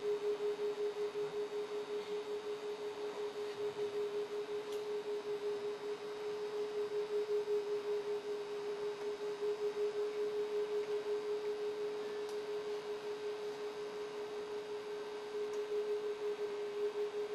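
Sustained single-pitch musical drone: a pure, steady tone held without a break, wavering quickly and evenly in loudness.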